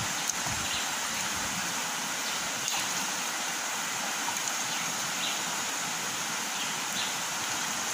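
River water flowing: a steady, even rush, with a few faint short high ticks over it.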